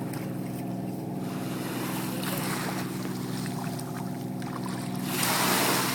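A boat engine running steadily with an even drone. A brief rushing hiss rises near the end.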